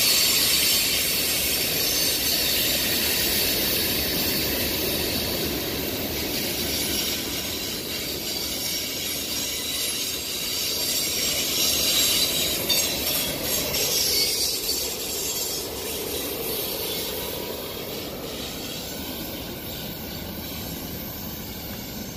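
Freight train cars (boxcars, covered hoppers and tank cars of a manifest train) rolling past on steel rails, with continuous wheel-and-rail rumble and a high squeal from the wheels. The sound swells briefly about halfway through, then fades as the last cars move away.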